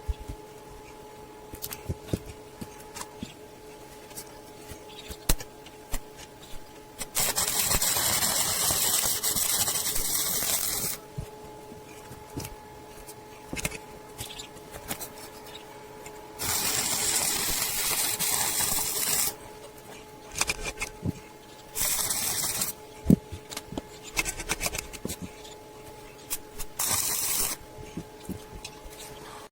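Repaired refrigerator compressor running on test with a steady hum, while compressed air hisses out in several bursts: a long one of about four seconds, one of about three seconds, then two short ones. Light clicks and taps run through it.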